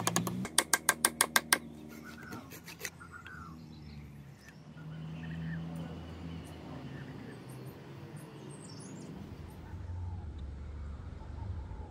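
A hammer taps rapidly on a wooden block to drive wooden wedges into the eye of a double-bit axe head, about eight taps a second, stopping after about a second and a half. After that, small birds chirp faintly.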